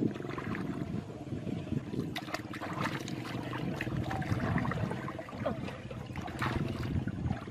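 Muddy water sloshing and splashing around a person wading waist-deep, with a few sharper splashes.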